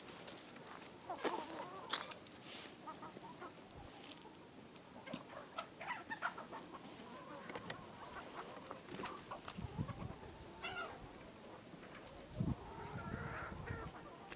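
Hens clucking: short, scattered calls and pecking-like clicks, with a few dull low knocks in the second half.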